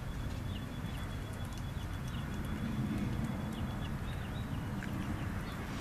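A cat chewing and lapping tuna off a plate, small wet clicks close up. Birds chirp repeatedly in short falling notes over a steady low background rumble.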